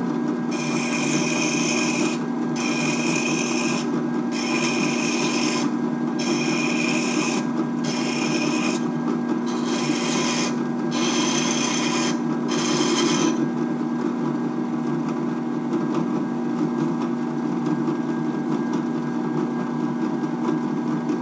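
Benchtop drill press running steadily with a diamond sharpening bit in the chuck, a steel leather hole punch rolled against it in about eight rasping passes of roughly a second each, grinding its dull cutting edge sharp. About thirteen seconds in the rasping stops and the drill press runs on alone.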